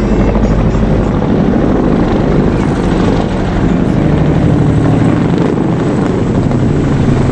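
Military helicopter flying over, its rotor and engine sound loud and steady.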